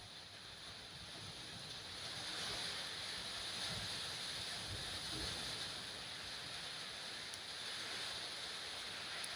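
A steady, even hiss that grows louder about two seconds in and then holds.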